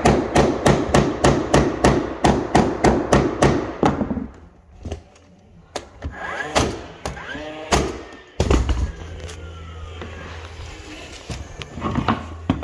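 Hammer driving toenails into the last hardwood floorboards: a fast, even run of about four strikes a second for roughly four seconds, then a few scattered knocks. About two-thirds of the way in, a steady low hum starts suddenly.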